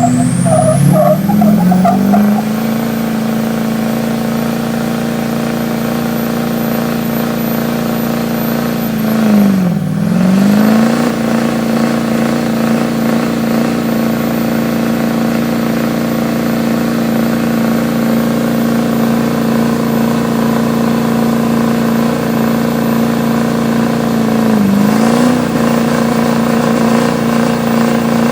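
Duramax LML 6.6-litre V8 turbodiesel held at high revs during a burnout. It makes a steady drone that sags briefly about ten seconds in and again near the end, each time climbing straight back up.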